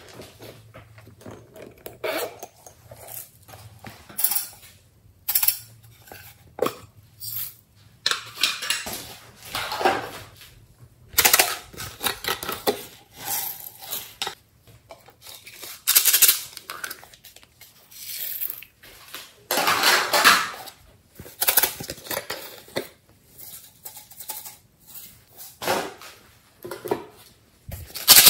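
Plastic sequins and confetti shaken out of small plastic containers onto slime in a glass dish: irregular rattling and clattering in short bursts, with quieter gaps between them.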